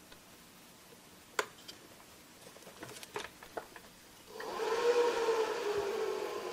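A few small clicks as a jumper wire is pushed into the connector. Then, about four seconds in, the HP ESP115 server power supply starts up after its built-in delay: its cooling fan spins up and runs with a steady whir, its pitch rising briefly and then settling.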